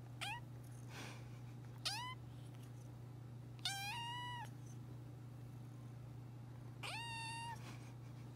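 Three-month-old grey tabby kitten giving four little high meows, each rising at its start; the first two are short and the last two longer and held.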